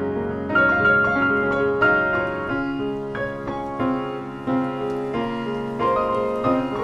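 Improvised piano duet for four hands: chords and single notes struck one after another, each ringing and fading before the next.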